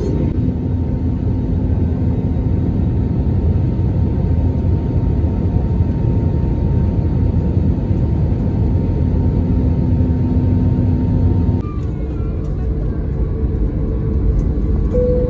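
Steady engine and rushing-air noise inside a jet airliner's cabin on final approach. About twelve seconds in it drops abruptly to a lower rumble as the plane comes down over the runway.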